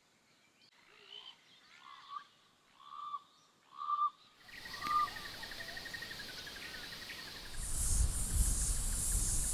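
Birds calling: four short mid-pitched calls about a second apart with fainter chirps around them. About halfway through they give way to steady outdoor noise, a hiss that grows louder near the end with a low rumble beneath it.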